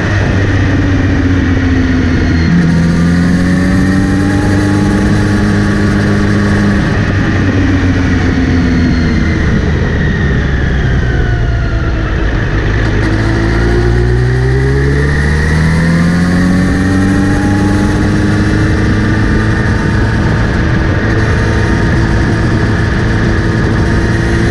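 Kawasaki Z900RS inline-four engine under way, its pitch stepping down at gear changes twice early on, falling away in the middle, then climbing again and holding steady. The owner hears a whirring from the front sprocket area when accelerating or in gear, present since cleaning and relubing the chain; chain tension checks out fine.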